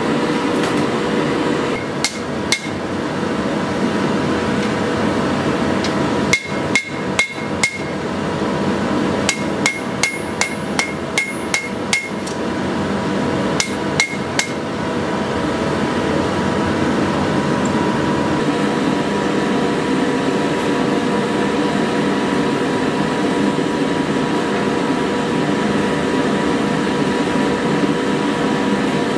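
Hammer blows on a sword blade over the anvil in four short groups of two to eight strikes, each ringing sharply, over a steady droning background. The hammering stops about halfway through and only the drone remains.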